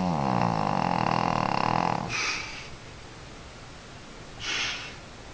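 A Shih Tzu snoring in its sleep. A long, pitched, fluttering snore breaks off about two seconds in and is followed by a short breathy puff, with another brief breath a little before the end.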